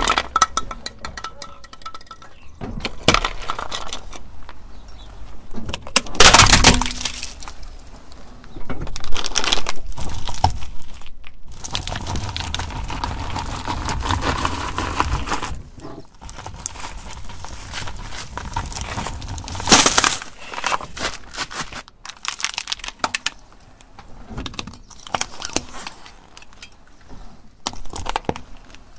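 Car tyre rolling slowly over objects on asphalt and crushing them, with a series of loud cracks and crunches: a sharp one about six seconds in, a longer grinding crunch from about nine to fifteen seconds, another sharp crack near twenty seconds, and smaller cracks near the end.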